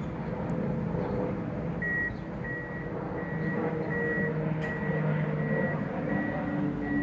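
A vehicle's reversing alarm beeping: a single high beep repeating evenly about every 0.7 s, starting about two seconds in, over the low rumble of an engine.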